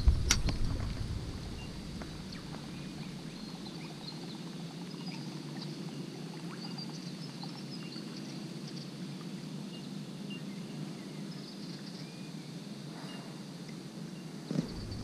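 Canoe on the water: a steady low wash of water against the hull, with a sharp knock just after the start and another near the end. Faint high chirps run through it.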